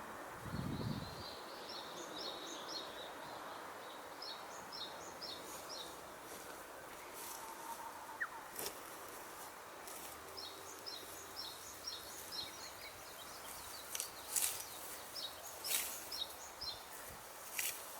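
Small songbirds singing repeated phrases of short, high notes over a steady outdoor hiss. A low thump comes about a second in, and sharp crackles or rustles are scattered through the second half.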